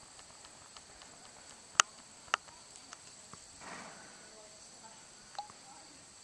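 Steady high-pitched chirring of insects, with two sharp clicks close together about two seconds in and a few fainter ticks.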